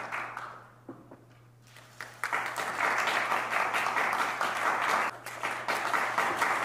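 Audience applauding: the clapping dies away in the first second, starts up again about two seconds in, and dips briefly near the five-second mark before picking up again.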